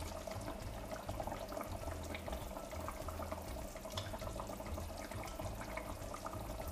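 A pot of lamb and tomato stew simmering with a steady soft bubbling, about forty minutes into cooking with the lamb nearly done, while a wooden spoon stirs through it.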